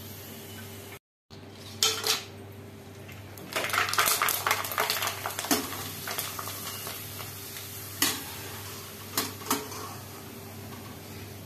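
Perforated metal skimmer clinking and scraping against a deep frying pan as potato wafers are stirred and lifted out of hot oil, over a steady sizzle. A run of rapid clinks comes in the middle, then a few single clinks near the end.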